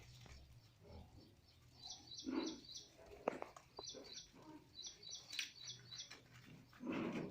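A watch and its packaging being handled, with rustles and a sharp click. Repeated short, high chirps come in quick, evenly spaced groups of two to four.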